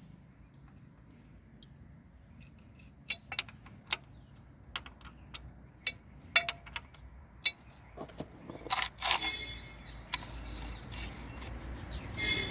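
Scattered sharp metal clinks and taps as flywheel bolts and hand tools are handled and the bolts set in, with a few short louder scraping clatters a little past the middle.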